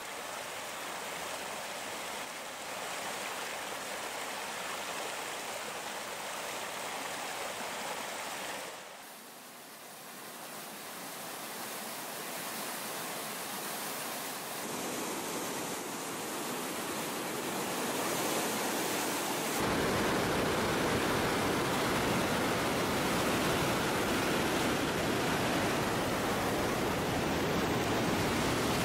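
Rushing water of a snow-fed mountain stream over rocks. About two-thirds of the way in it steps up to a louder, deeper and fuller rush of whitewater pouring over a waterfall.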